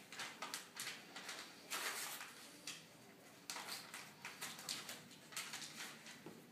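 Wrapping paper rustling and crinkling in short, irregular bursts as a small present is unwrapped by hand.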